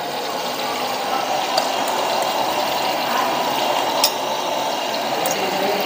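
Steady hiss of a gas burner heating oil in a wok, with a few light clicks of a spoon against a steel mixing bowl.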